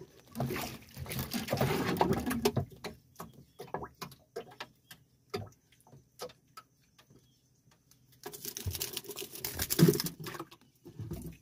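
A small fish being handled and unhooked in a wooden outrigger boat: scattered sharp clicks and knocks, with two longer stretches of rustling, in the first few seconds and again near the end.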